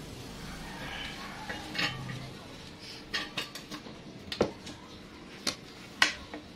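Cutlery clinking against plates and bowls during a meal: a handful of separate sharp clinks in the second half, the loudest about four and a half seconds in.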